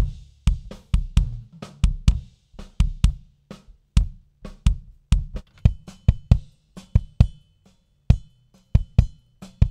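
Recorded kick drum tracks played back through the same EQ, gate and compression preset: a fast run of kick hits, two to three a second, with fainter bleed from the rest of the kit between them. The channels are switched from the first kick, whose heads ring more openly, to the third, heavily padded kick near the end.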